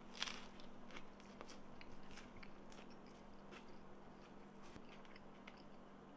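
Close-up biting and chewing of a crunchy lettuce wrap filled with fried mahi roe: a run of faint, crisp crunches.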